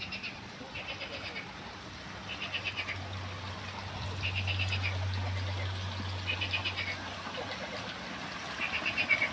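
Frogs calling with short, rapid, rattling croaks, about six in a row, each about half a second long. They sit over the trickle of a small stream cascade and a steady low hum.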